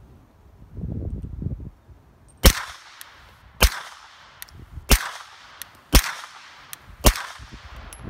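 Five suppressed shots from a CZ P07 9mm pistol fitted with a SilencerCo Hybrid suppressor, firing supersonic 115-grain FMJ rounds. The shots come about one a second, each a sharp crack that trails off in a brief echo.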